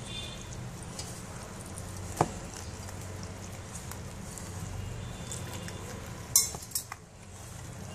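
Rice flour dough being mixed by hand in a stainless steel bowl, with a sharp clink about two seconds in and a few quick clinks around six and a half seconds in, over a steady low hum.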